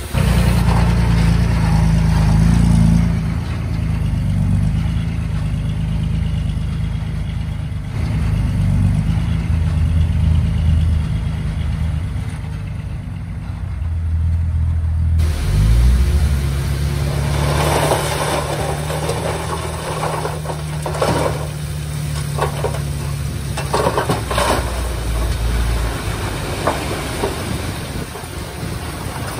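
Komatsu D20P bulldozer's diesel engine running steadily, its note shifting as the load changes. In the second half, sharp knocks and scraping from the blade and tracks working through stones.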